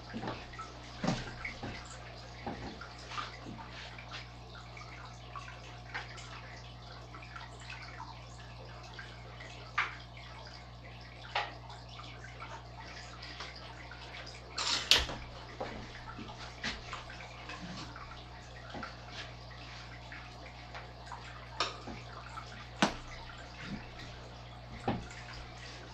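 Aquarium water trickling and dripping, with scattered small splashes and pops over a steady low hum. The loudest splash comes about fifteen seconds in.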